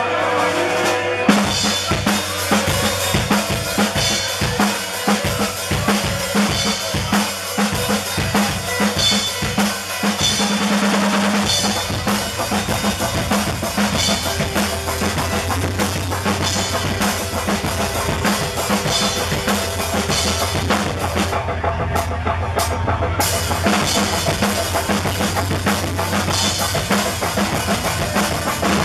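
Live band playing, led by a drum kit struck hard with sticks over sustained instrument tones, with a loud hit about a second in.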